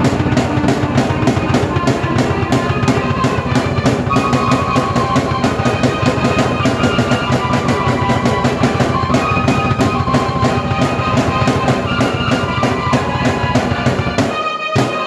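Drum kit played with a fast, steady beat together with a keyboard melody. The drums and low end drop out about a second before the end.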